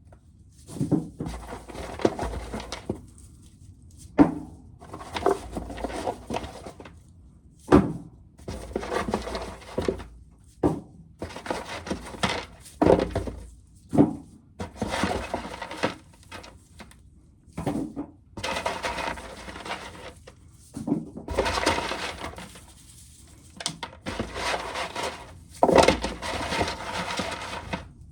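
Dried corn being shelled by hand: repeated bursts of kernels rattling off the cob into a container, with a few sharp knocks in between.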